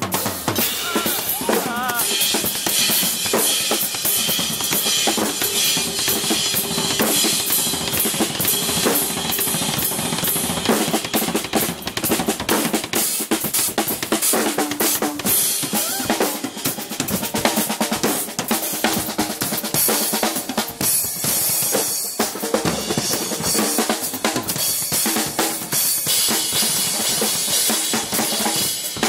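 Acoustic drum kits played in fast, busy solos: snare, toms and bass drum under a constant wash of cymbals. The player and kit change partway through.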